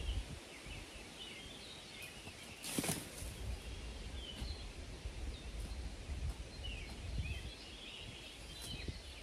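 Small birds chirping on and off over a low background rumble, with one brief rustle about three seconds in.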